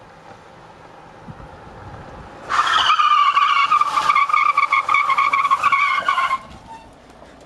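Hyundai Stellar climbing a very steep street under load from a standing start. About two and a half seconds in, a loud high squeal starts, holds for nearly four seconds while dipping slightly in pitch, then cuts off suddenly as the car passes.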